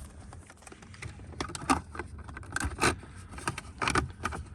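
Plastic centre-console trim parts clicking, knocking and scraping as they are handled and slid back into place. A quiet start, then a run of irregular light clicks and knocks from about a second and a half in.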